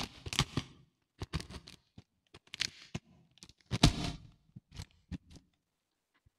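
Cardboard parcel wrapped in packing tape being pulled and torn open by hand: irregular crackling rips and crinkles in short bursts, the loudest about four seconds in.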